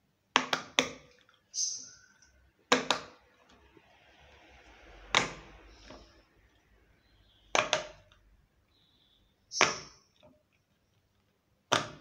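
Silicone pop-it fidget toy bubbles being pressed by fingers, each giving a sharp pop. About nine pops at uneven intervals, three in quick succession near the start and two close together later.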